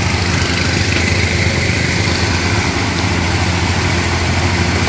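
An engine running steadily at an even speed, a low unbroken drone.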